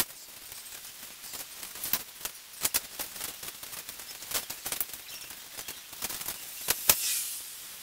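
Irregular light clicks and rustling from a string of Christmas lights being handled and draped over an artificial tree, the plastic bulbs and wire knocking together and against the branches. The sharpest click comes near the end.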